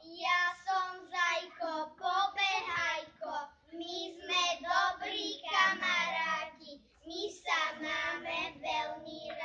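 Young children singing a song, with short syllables following one another in a steady rhythm.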